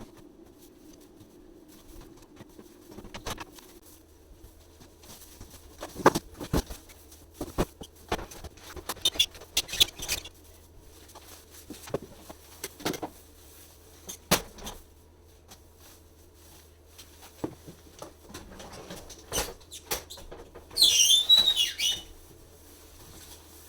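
Plastic and metal parts of a built-in dishwasher being handled during a repair: scattered clicks and knocks, then a loud squeaky rubbing near the end.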